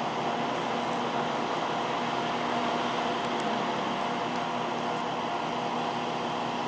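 Diesel railcar idling at a standstill: a steady mechanical hum with a few faint steady tones underneath.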